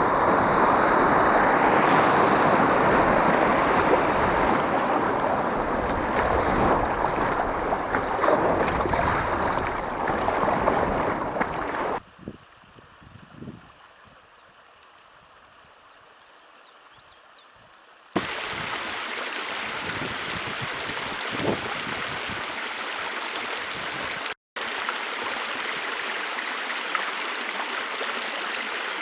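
River water rushing over a shallow rapid, loud and even at first. About twelve seconds in it cuts to a much quieter stretch, and after about six seconds a steady, weaker rush of flowing water takes over.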